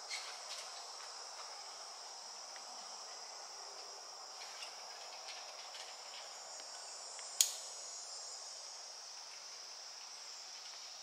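Steady, high-pitched chorus of insects droning evenly. A single sharp click cuts through about seven seconds in.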